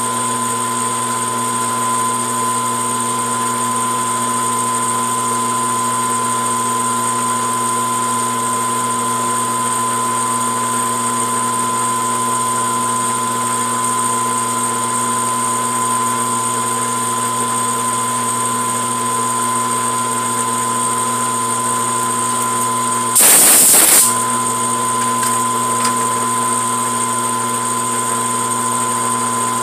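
Grizzly G4003G gunsmithing lathe running steadily, its spindle and gear train set up for threading at 28 threads per inch: a steady mechanical hum with a high whine. About 23 seconds in, a loud burst of noise lasts about a second.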